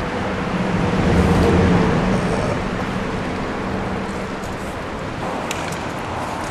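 Steady traffic rumble that swells as a vehicle passes about a second in, then eases off. Near the end there are a few short hisses from an aerosol spray-paint can.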